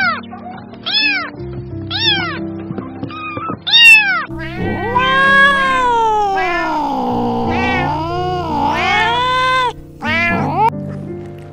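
A cat meowing: five short meows about a second apart, then one long drawn-out yowl that rises, falls and wavers in pitch, then one more short meow near the end, over background music.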